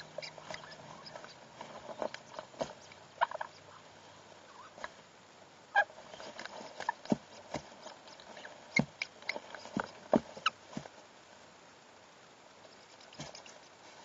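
A pair of sun conures mating, giving short, soft grunting calls with clicks in irregular spurts. The calls thin out after about eleven seconds.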